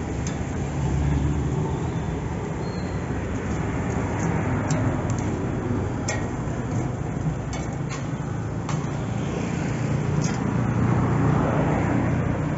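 Road traffic running steadily, with engine hum rising and falling as vehicles pass, and a few sharp clicks scattered through the middle.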